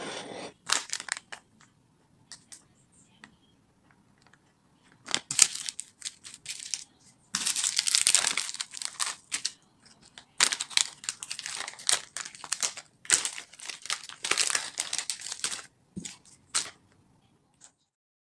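Plastic and foil instant-noodle packets and seasoning sachets crinkling as they are handled and torn. The sound comes in irregular bursts with short pauses and stops about a second before the end.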